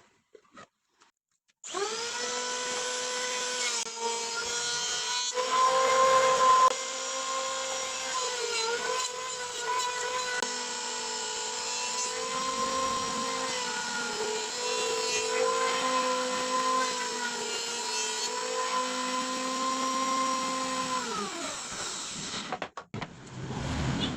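Electric woodworking power tool running with a steady motor whine that starts about two seconds in. It gets louder and rougher for about a second around six seconds in, then winds down with falling pitch near the end as it is switched off.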